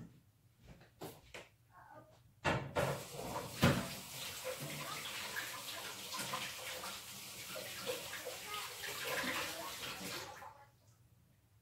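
Water from a kitchen tap running and splashing for about eight seconds, with a couple of knocks as it starts, then shut off near the end.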